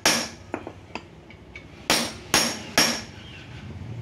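Hammer blows on a metal rod pressed into a mould of freshly cast aluminium from scrap pistons, each a sharp metallic clang with a short ring. There is one blow at the start and two light taps, then three quick blows about half a second apart near the end. The pounding compacts the cooling metal so the piston blank comes out denser and free of pores.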